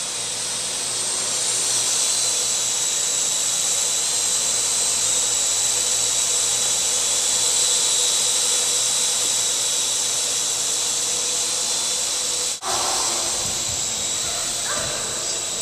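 Parrot quadcopter drone in flight, its propellers and motors making a steady high-pitched whine over a rushing hiss. The whine cuts out for an instant about three-quarters of the way through, then carries on.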